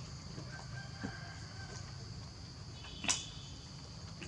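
A rooster crowing faintly once, over a steady high drone of insects, with a single short sharp sound about three seconds in.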